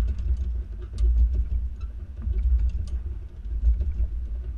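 Low rumble of a Ford F-150 pickup rolling slowly over test-course speed bumps, with scattered light clicks and ticks as the hitch-mounted bike rack and the bike on it twist.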